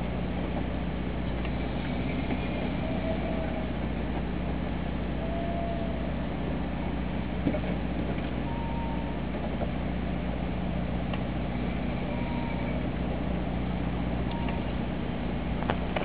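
Steady low hum of an anchored boat's machinery running, over a wash of water and wind noise, with a light knock about seven and a half seconds in.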